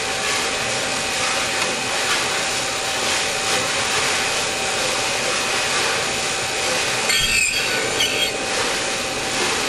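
Valve grinding machine running steadily while grinding the tip of an engine valve stem: a constant motor whine under a grinding hiss, with a brief scraping squeal about seven seconds in.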